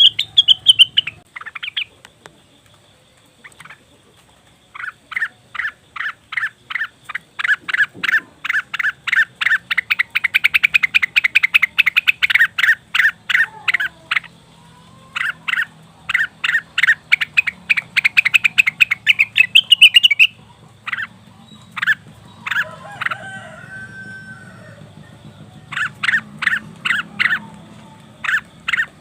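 Cucak wilis (rengganis) leafbird song played as a lure: fast runs of short, sharp repeated notes, several a second, broken by brief pauses and picking up again near the end. The call is the kind used to set off a kept bird's song.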